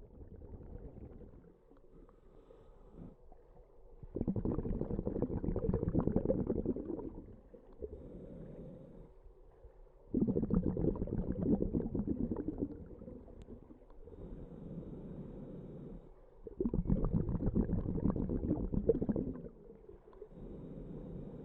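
A scuba diver's underwater breathing: three loud bubbling exhalations about six seconds apart, with quieter breathing between them.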